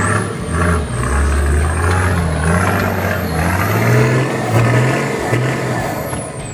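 Off-road 4WD's engine revving up and down under load as it works over rocky ground, with a thin high whine rising and falling in pitch.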